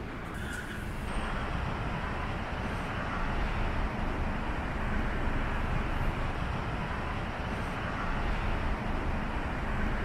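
Steady rushing of wind over the microphone mixed with surf washing over coastal rocks below, an even roar with uneven low rumble.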